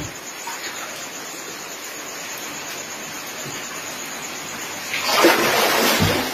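Shallow floodwater making a steady watery hiss, with a louder splash about five seconds in that lasts about a second.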